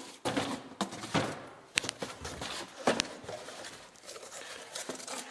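Cardboard boxes being opened and rummaged through: cardboard flaps scraping and rustling, with a few sharp knocks in the first three seconds, then softer rustling.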